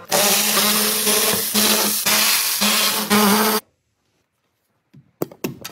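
A power tool running loudly in a few bursts, a hiss with a steady hum under it, that cuts off suddenly about three and a half seconds in; a few sharp clicks follow near the end.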